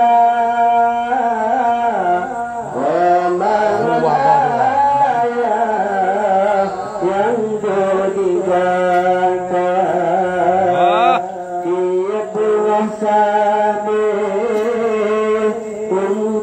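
A man singing an Acehnese qasidah, a devotional song, into a handheld microphone, in long, ornamented notes that bend and waver, over a steady low drone.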